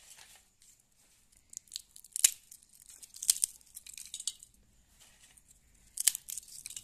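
Crisp fried papdi wafers snapped and crumbled by hand. A loud sharp crack comes about two seconds in, a cluster of crunchy breaks follows a second later, and one more crack comes near the end.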